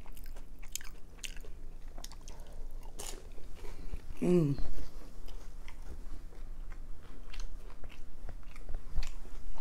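Close-miked chewing and eating: many small crunches, clicks and wet mouth smacks, with a short falling "mmm" hum about four seconds in.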